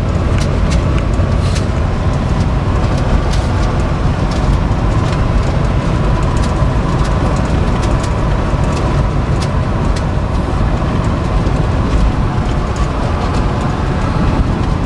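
Steady low road and wind rumble of a 2013 Ram heavy-duty pickup driving at speed, with scattered light ticks over it.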